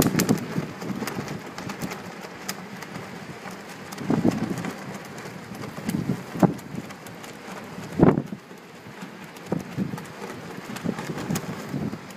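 Blizzard wind gusting, heard as a steady hiss with irregular buffeting surges every second or two, the strongest about eight seconds in, and scattered faint ticks.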